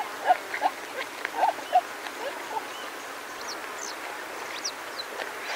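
Warthogs grunting and squealing in short nasal calls while feeding on short grass, a quick run of them in the first two and a half seconds. Later a few thin, high bird chirps sound over a steady hiss of wind in longer grass.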